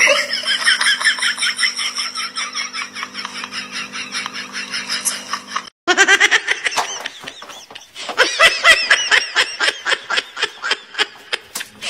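People laughing in quick repeated bursts. The sound breaks off briefly about six seconds in, and the laughing starts again.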